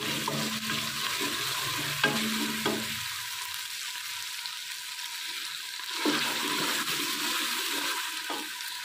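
Sliced onions and garlic-ginger paste sizzling in hot oil in a pressure-cooker pot while a spatula stirs them, with a few sharp clicks along the way. This is the bhunai stage, frying to cook off the raw smell of the garlic-ginger paste.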